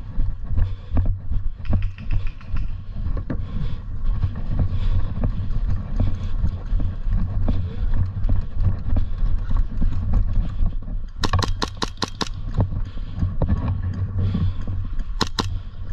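Airsoft gas blowback pistol on HPA firing a quick string of about six sharp shots within a second, then two more shots near the end. A steady low rumble with small knocks runs underneath.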